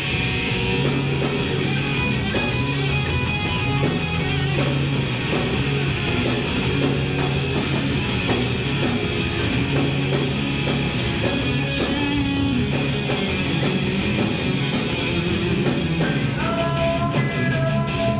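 Live rock band playing loudly, with electric guitar over steady bass and drums.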